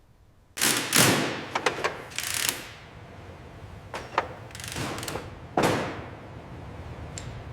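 A series of mechanical clunks and thuds with short noisy rushes. Several come in quick succession starting about half a second in, then more spaced out, with a small click near the end.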